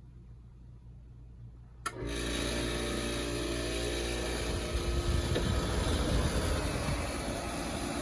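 Window air conditioner switched on about two seconds in: a sharp click, then the compressor, helped by a newly fitted hard start kit, and the fan start at once and run steadily with a loud hum.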